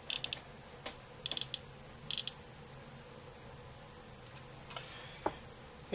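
Three short runs of rapid, high-pitched ticking in the first two and a half seconds: the clicker of a third-generation iPod ticking as its touch wheel is scrolled. A single light knock comes near the end.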